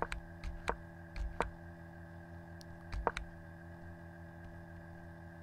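A handful of sharp computer clicks, a pair of them close together about three seconds in, over a steady low electrical hum. The clicks step a chess replay forward move by move.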